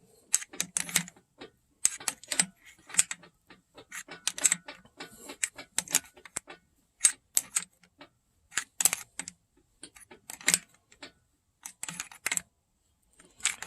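A hand wrench clicking in short runs with light metal clinks as it turns the installer tool's screw, drawing the vibration dampener onto the 5.7L Hemi crankshaft snout.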